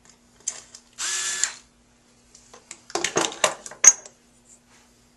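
A battery-powered surgical drill runs briefly, for about half a second, on a fixation pin in a femoral sizer set on a sawbones femur. About two seconds later comes a quick run of knocks and clicks from metal instruments being handled, the sharpest near the end.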